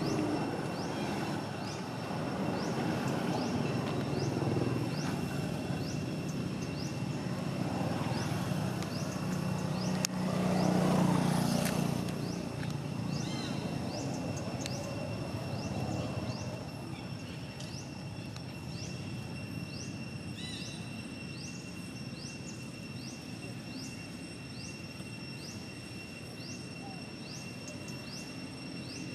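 Outdoor background noise: a low rumble swells to a peak around the middle and then fades, over a steady high-pitched tone with short rising chirps repeating more than once a second.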